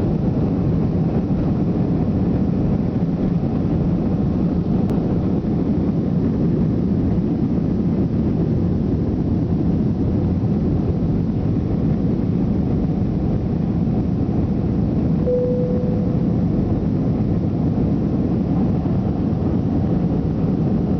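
Loud, steady jet engine and air noise inside the cabin of an Airbus A320-200 on takeoff. A short steady tone sounds briefly about fifteen seconds in.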